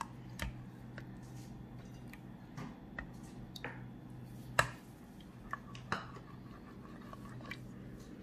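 Whipped cream being stirred into thick cooked custard in a stainless steel pot: a wet squish with scattered clicks and knocks of the spoon against the pot, one louder knock a little past halfway. A low steady hum runs underneath.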